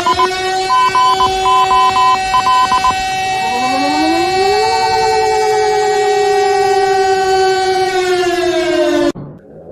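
A siren holding a steady two-note sound, with fast beeping over the first three seconds. About four seconds in, a further tone glides up and joins it. The tones sag slightly in pitch, then cut off abruptly near the end.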